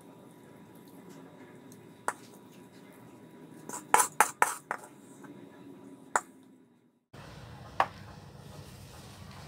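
Spatula scraping and knocking against a thin aluminium wok while stir-fried water spinach is slid out onto a ceramic plate, with a quick run of sharp metallic clinks about four seconds in and a few single taps around it.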